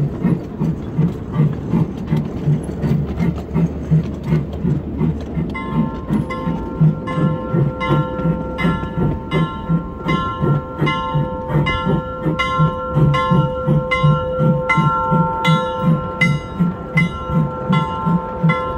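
Ride-on miniature train rolling along its track, its wheels clacking in a steady rhythm about two to three times a second. From about six seconds in, a steady high ringing of several tones at once joins the clacking and holds to the end.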